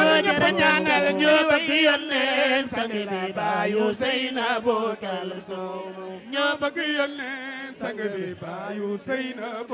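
A group chanting a devotional Sufi religious song in Wolof: a lead voice wavers and ornaments the melody while others hold a steady low note underneath.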